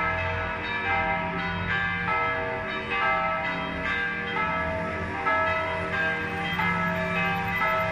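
Several church bells of St. Gerard's Roman Catholic church ringing together in a continuous peal. Their overlapping strokes keep coming without a pause, each leaving a long hum beneath.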